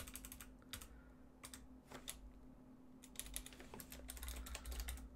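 Typing on a computer keyboard: keystrokes come in short runs with gaps, busiest in the second half, as a terminal command is keyed in.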